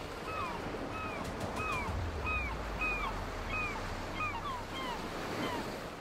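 Rushing river water, with a bird repeating short downward-sliding whistled calls about twice a second over it.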